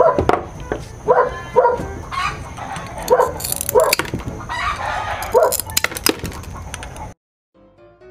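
Animal calls, a series of short repeated calls and one longer call, with a few sharp clicks. The sound cuts off about seven seconds in and soft piano music begins.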